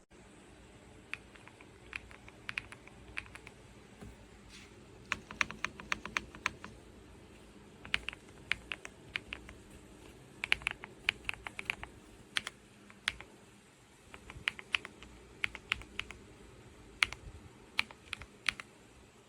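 Typing on an Epomaker Ajazz AK820 Pro gasket-mounted mechanical keyboard with Ajazz Gift switches. Keystroke clacks come in irregular quick runs with short pauses between them, over a faint low hum.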